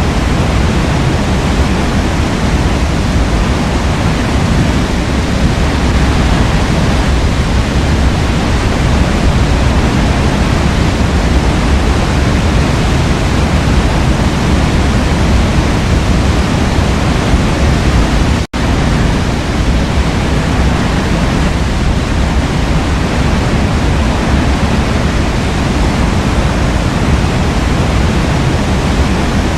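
Forest waterfall rushing steadily, a loud, even roar of falling water. About two-thirds of the way through it cuts out for a split second and comes straight back.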